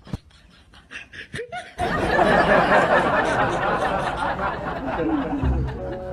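Laughter, setting in loudly about two seconds in, after a few short clicks.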